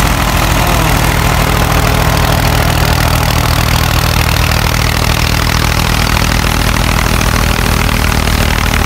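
Tractor engine running steadily under load while driving a wheat thresher, a constant engine hum under a loud, even rushing noise from the threshing machinery.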